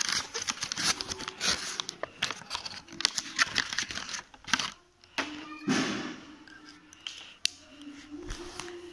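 Handling noise of a plastic fountain pen and its cap: rustling with small clicks and taps, and a louder knock a little past halfway.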